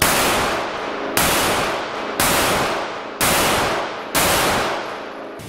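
Five 9mm pistol shots from a Canik TP9SF, fired at a steady pace about one a second, each echoing and fading in an indoor range.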